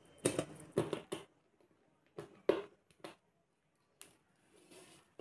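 A series of short clicks and scrapes from a screwdriver working the terminal screws of plastic two-way electrical switches and from the switches being handled, three quick ones at the start, then spaced out, with a soft rustle near the end.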